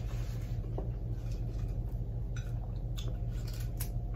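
A few soft, sharp clicks of someone eating (mouth and fingers picking at food) between about two and four seconds in, over a steady low hum.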